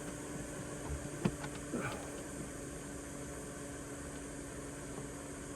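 Steady background hum, with one sharp click a little over a second in and a brief scrape just after, as the ignition lock cylinder is worked into its housing.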